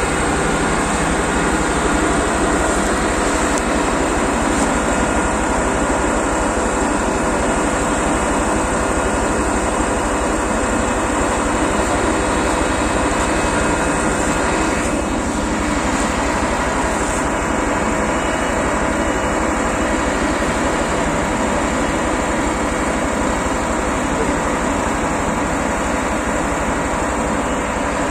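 CLAAS Lexion 760 combine harvester's engine running steadily at high revs close by, with a tractor's engine working under load behind it as the combine is pulled forward out of deep mud.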